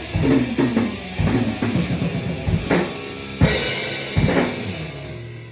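Live band playing with drum kit, bass and guitar, with a run of heavy drum hits; a final pair of hits comes about four seconds in and the sound then rings out and fades, the song ending.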